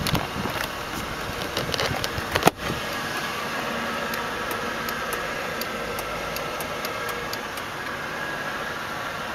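The limousine's 4.6-liter V8 idling, a steady hum, with a few light clicks in the first two seconds and one sharp knock about two and a half seconds in.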